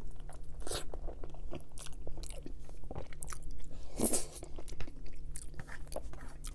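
Close-miked chewing of a mouthful of lasagna: wet mouth clicks and smacks, with a louder bite from the fork about four seconds in.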